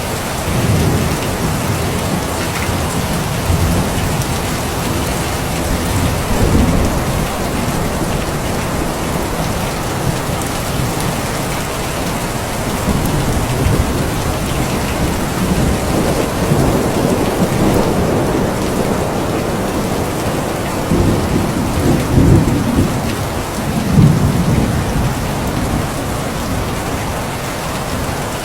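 Steady rain falling, with low rolling thunder rumbling several times; the strongest rumbles come near the end.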